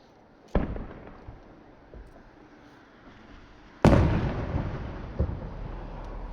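Aerial firework shells bursting: a sharp bang about half a second in and a louder one near four seconds, each followed by a long fading rumble, with a few smaller pops in between and after.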